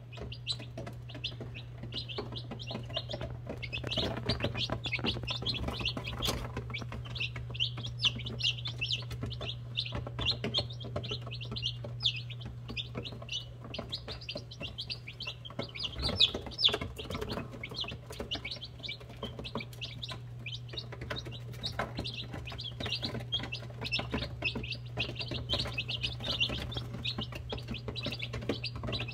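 A brood of day-old chicks (Buff Orpington, Cream Legbar and Black Copper Marans) peeping constantly, many short high chirps overlapping, over a steady low hum, with a few soft knocks about four and sixteen seconds in.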